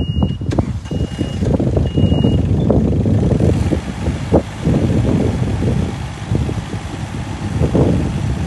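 Takeuchi TB216 mini excavator on the move: its diesel engine running steadily under load, with track clatter and a few sharp clanks. Its travel alarm sounds three high beeps in the first two and a half seconds, warning that the tracks are moving.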